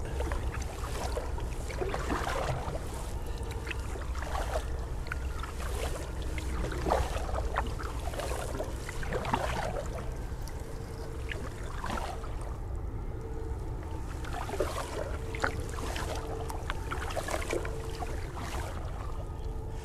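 Kayak paddle blades dipping and pulling through calm water, a soft swish and trickle every second or so, with a short lull just past the middle.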